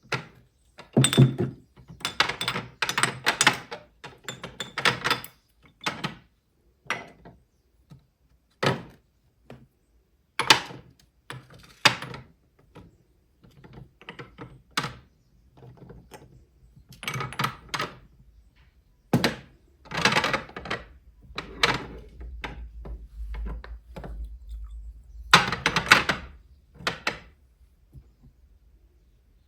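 A long series of knocks, thunks and light clatter as objects, likely perfume bottles, are handled and set down on a hard surface, with a low rumble for a few seconds past the middle.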